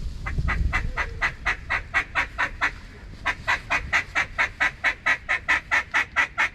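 Hand-blown duck call sounding a fast, even series of quacks, about five a second, in two runs with a short break about three seconds in, calling to birds working the spread.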